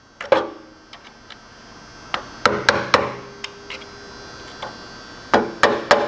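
Hammer striking a screwdriver driven in behind the old, leaking tine-shaft seal of a Troy-Bilt Tuffy tiller's gearbox to work the seal out. There is a single blow about a third of a second in, a few blows around two and a half to three seconds, and a quick run of about four blows near the end.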